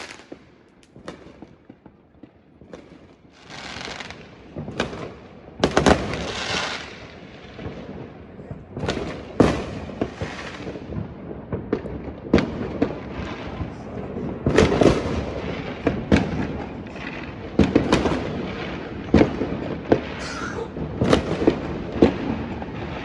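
New Year fireworks display: a run of sharp bangs and booms from bursting aerial shells, with crackling and hissing between them, thicker and more frequent in the second half.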